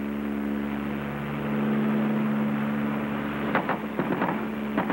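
OV-1 Mohawk's twin Lycoming T53 turboprops droning steadily in flight. From about three and a half seconds in, a run of short, sharp sounds breaks over the drone.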